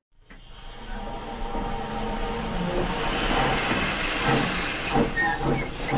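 Digital steam sound effects from a sound-fitted Dapol B4 tank engine model: a steady steam hiss with the noise of the model running, rising quickly from silence in the first second.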